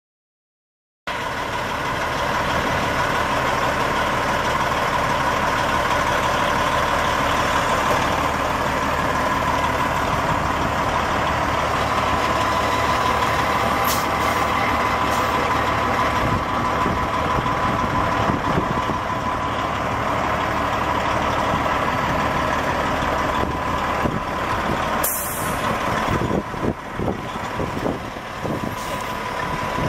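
A 1998 Peterbilt 377's Detroit Diesel Series 60 12.7-litre inline-six turbo diesel idling steadily from about a second in, with a steady whine over it. A short hiss of air comes about 25 seconds in, and the sound wavers near the end.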